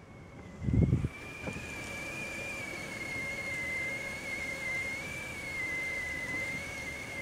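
Stovetop whistling kettle at the boil, giving one steady high whistle that wavers slightly in pitch. A brief low thump sounds just under a second in.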